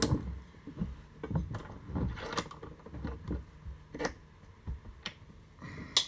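Hands working a metal bench vise: a string of irregular knocks and clunks, the sharpest near the end.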